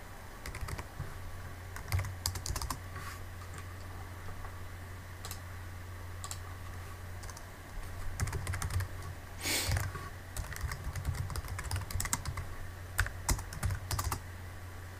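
Computer keyboard typing in two bursts of quick key clicks, the second one longer, over a steady low hum. There is a short rush of noise about nine and a half seconds in.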